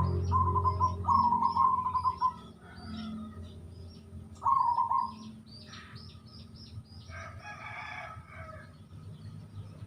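Zebra dove (perkutut) cooing in short phrases of rapid, rattling notes, three phrases in the first half, over small birds chirping high and thin throughout. About seven seconds in, another bird gives one longer call.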